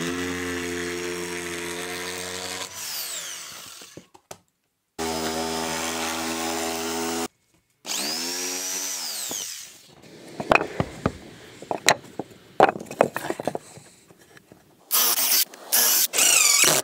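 Corded jigsaw cutting through OSB roof sheathing in three runs of a few seconds each, its motor tone steady while it cuts and winding down at each stop. Then a string of sharp knocks and clatters, and near the end a cordless drill whirring.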